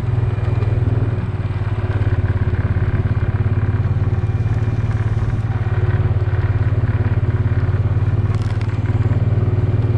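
Quad (ATV) engine running steadily at an even speed, a loud continuous low hum with no change in pitch.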